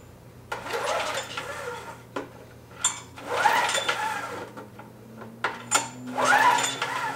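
Recoil starter on a 6 hp Briggs & Stratton engine pulled three times, each pull a brief whirring rush of the rope and flywheel as the engine spins over freely with its spark plug out.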